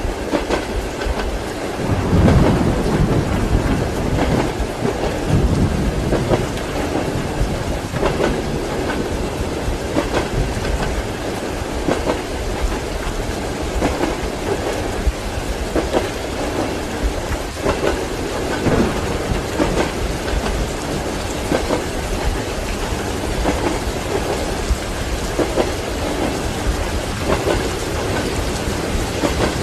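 Steady heavy rain with low rolling thunder, strongest about two seconds in and again past halfway, over the rhythmic clack of train wheels on the rail joints.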